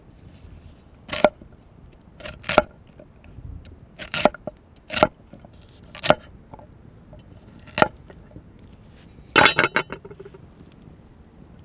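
Cleaver chopping carrots on a wooden cutting board: single sharp chops, roughly one or two a second, then a quick run of several knocks about nine and a half seconds in.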